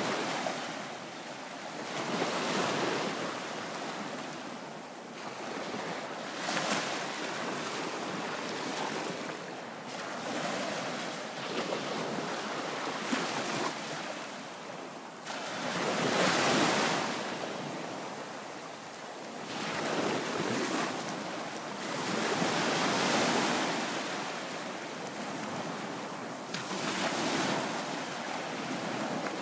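Small waves breaking and washing up on a sandy bay beach, the surf swelling and easing about every three to four seconds.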